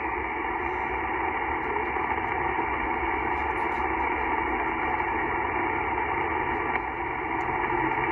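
Yaesu FT-891 HF transceiver receiving single-sideband: a steady band of hiss and static, cut off in the treble by the narrow SSB filter, with no readable voice on the frequency while the answering station is expected to transmit.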